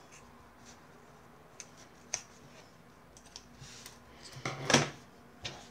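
Scissors cutting through the end of a zipper tape and fabric, heard as a few light, scattered snips and clicks, then a louder brief rustle of the cotton piece being handled on the cutting mat near the end.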